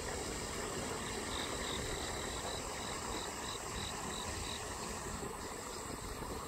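Outdoor insect sound: a steady high buzz, with a run of short chirps, about three a second, for a few seconds in the middle, over a low rumble.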